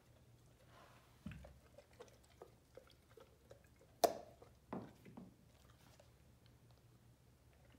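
A Great Dane's faint, sporadic chewing and mouth noises on carrot, with a low thump a little over a second in, a sharp click about four seconds in and a smaller knock just after.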